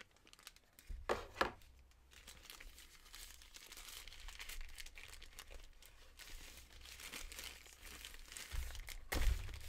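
Thin plastic wrapping bag crinkling and rustling as it is worked off a speaker by hand. There are a few sharp rustles about a second in and a louder rustle near the end.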